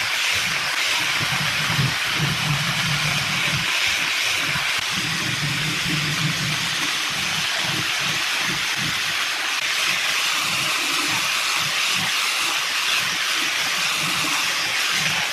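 Handheld angle grinder with a sanding disc running steadily against solid wood, a continuous hiss of abrasive on timber.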